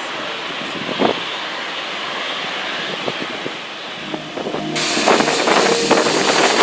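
Steady jet-engine noise from a twin-engine widebody airliner climbing away after takeoff. About five seconds in it changes abruptly to louder, gusting wind buffeting the microphone over the steady hum of a taxiing Airbus A320neo's jet engines.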